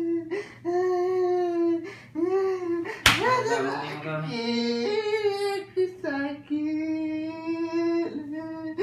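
A person's voice drawn out in long held tones that break off and start again, with one sharp slap about three seconds in.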